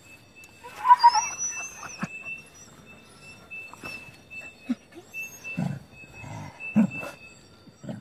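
Dog sniffing in short huffs with its nose pushed into an earth burrow, with a brief high whine about a second in.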